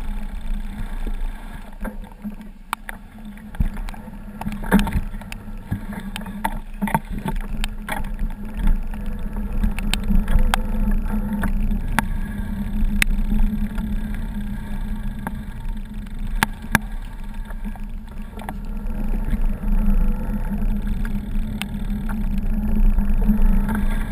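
Steady low rumble of a camera moving along a wet, branch-strewn path, with many scattered sharp clicks and knocks.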